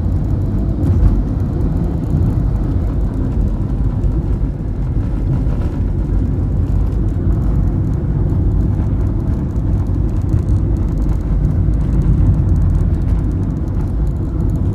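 Car driving along a road: a steady, deep rumble of engine and tyres heard from inside the moving vehicle.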